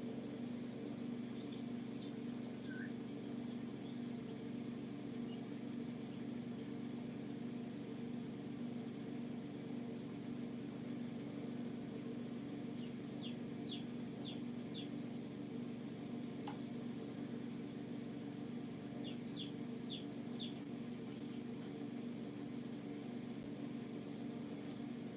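Steady low hum throughout, with young chicks giving two short runs of about four high peeps each, one a little after halfway and another about three-quarters through, and a single sharp click between them.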